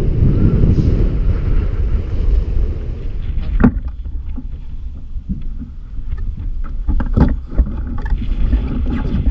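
Strong wind buffeting the microphone on a kayak in rough water, heavy at first and easing after about three seconds. Scattered sharp knocks and water slaps against the kayak's hull follow.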